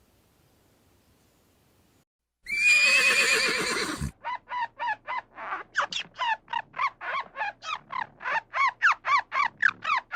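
An animal call: after a short quiet spell, one loud, harsh call lasting about a second and a half, followed by a fast run of short, rising-and-falling calls, about four a second, that grow louder.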